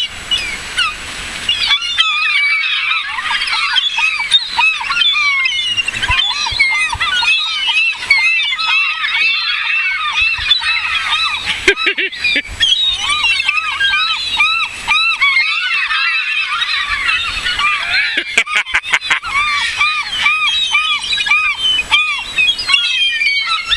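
A flock of seagulls calling over one another: a loud, continuous tangle of short, arched squawks and mewing cries.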